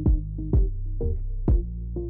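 Background hip-hop music with a steady drum-machine beat, about two beats a second, over a deep bass line.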